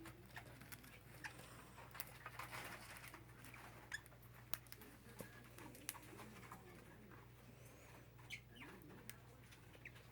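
Faint scratching and light tapping of small parakeets moving about, with a few soft short chirps about eight seconds in, over a low steady hum.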